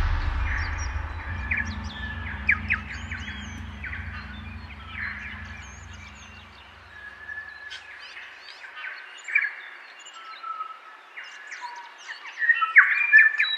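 Birdsong from several birds, short chirps and whistles, getting busier and louder near the end. Under it, a low held tone fades away over the first seven seconds or so.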